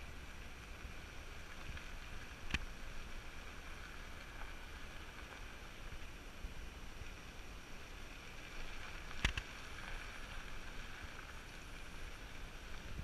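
Steady, faint outdoor background noise with a low rumble, broken by two sharp clicks about two and a half and nine seconds in.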